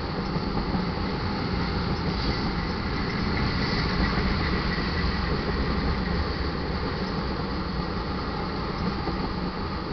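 Eastbound BNSF crude oil train rolling past steadily: the steady rumble and clatter of steel wheels on rail, with a faint thin squeal for a few seconds near the start.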